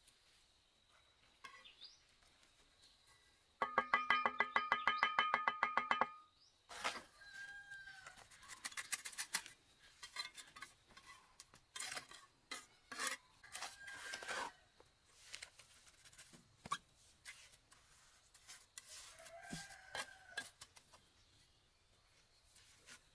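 A rooster crowing once, a long call about four seconds in, followed by a few short fowl calls and scattered light knocks and clicks over a faint steady high tone.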